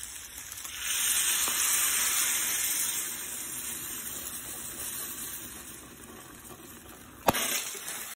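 Shredded beef, green peppers and onions sizzling in a glass casserole dish on a gas burner, with stirring; the sizzle swells about a second in, then slowly dies down. A sharp crack sounds near the end.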